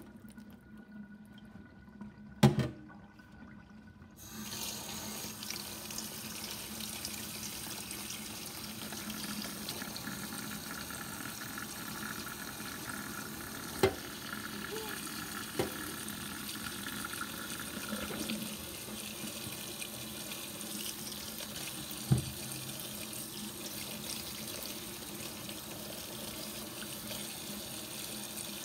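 Kitchen tap running into a stainless steel colander of strawberries in the sink, starting about four seconds in and then running steadily. A sharp knock comes just before the water starts, and a few more knocks come while the berries are handled.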